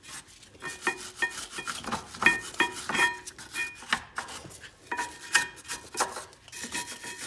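A brush scrubbing the rear brake caliper bracket clean in irregular scraping strokes, a few a second, some of them with a short metallic ring.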